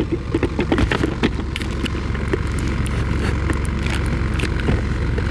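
Steady low engine and road rumble heard from inside the cab of a 1995 Toyota Hilux on the move, with a cluster of clicks and knocks in the first second or so.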